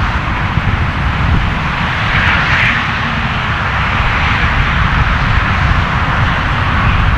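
Jet airliner's engines, heard as a steady deep rumble with a hiss that swells about two seconds in.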